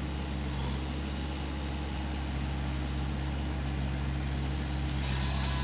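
Excavator's diesel engine running steadily. A faint high whine comes in near the end.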